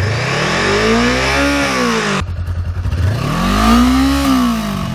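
2018 Honda CBR500R's parallel-twin engine revved twice through its stock exhaust: each time the pitch climbs and falls back, dropping to idle briefly between the two revs.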